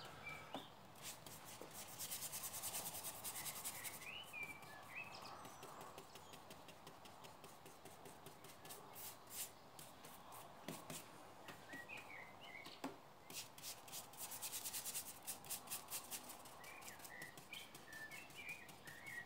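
Paintbrush bristles scrubbing paint onto an MDF board in quick back-and-forth strokes, in two short spells about two seconds in and again around the middle. Faint bird chirps come and go behind it.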